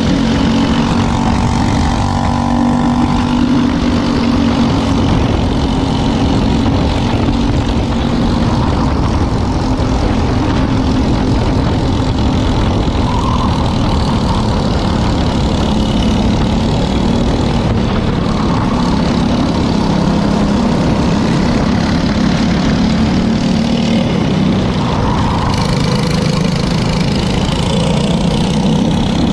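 Briggs & Stratton LO206 single-cylinder four-stroke kart engine running hard on track, its note rising and falling with the throttle.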